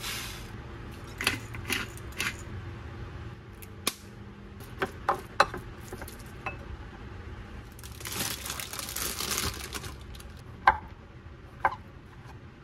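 Wooden spoon working seasoning into raw minced pork in a ceramic bowl: light taps of the spoon against the bowl and a longer wet squishing as the meat is stirred. Near the end a chef's knife slices mushrooms on a wooden cutting board, striking the board about once a second.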